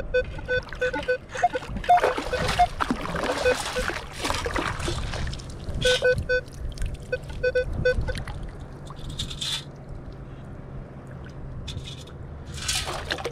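Minelab Equinox 800 metal detector giving runs of short, same-pitched beeps as its coil passes over a buried target, at the start and again around six and seven and a half seconds in. Between them, water sloshes and splashes as a long-handled sand scoop digs into the bottom in the shallows.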